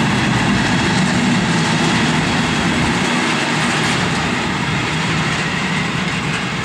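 Freight train of covered sliding-wall wagons rolling past on the rails: a steady, loud rumble of wheels on track that eases slightly near the end as the last wagons move away.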